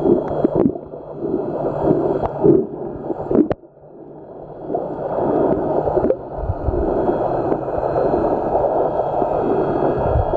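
Water gurgling and sloshing around a camera held just under the sea surface, a muffled, bubbly underwater noise that briefly drops away about three and a half seconds in.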